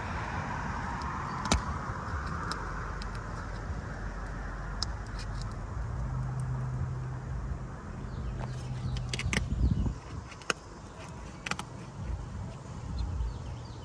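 Metal roofing tool scraping and clicking against asphalt shingles as their adhesive seal is broken, with a heavier knock about two-thirds of the way in. A vehicle passes in the background early on, and a low engine hum follows.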